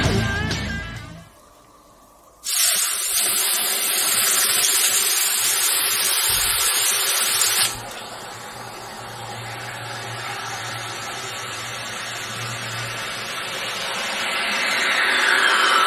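Hot metal ball, heated to about 1000 degrees, sizzling and hissing as it melts into a ball of ice. The hiss starts suddenly and loud, drops to a softer steady sizzle about five seconds later, and a falling whistle-like tone comes near the end. Music fades out just before the hiss begins.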